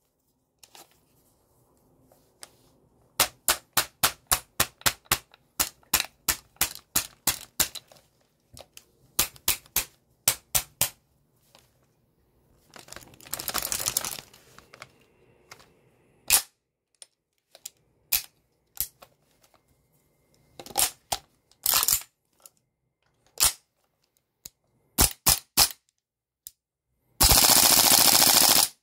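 APFG MCX gas blowback airsoft rifle firing, each shot a sharp crack of the blowback bolt cycling. It fires strings of single shots, a short full-auto burst about halfway through, more single shots, then a long full-auto burst near the end.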